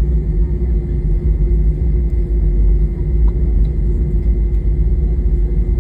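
Cabin noise of an Airbus A320-232 on the ground with its IAE V2500 engines running: a loud, steady low rumble with a constant hum over it.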